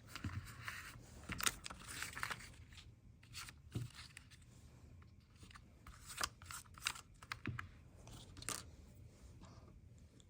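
Paper and cardboard watch packaging being handled: soft rustling with scattered light taps and clicks.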